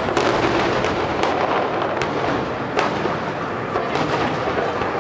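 Aerial fireworks shells bursting one after another, a continuous rumble of booms broken by several sharp cracks. The sharpest crack comes a little under three seconds in.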